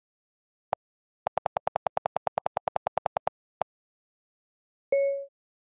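iPhone keyboard clicks: a single tap, then a fast run of about eighteen clicks over two seconds as the delete key is held and the typed text is erased, and one more tap. Near the end comes a short two-tone chime as voice dictation starts.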